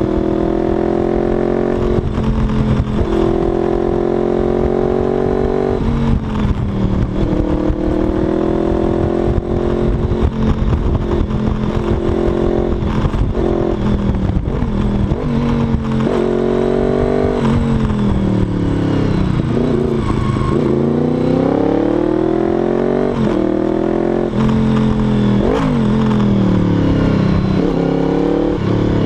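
Honda VFR800's V4 engine pulling hard, its pitch climbing through the gears with short breaks at the upshifts, then dropping off and picking up again several times through a run of bends. Wind buffets the microphone underneath.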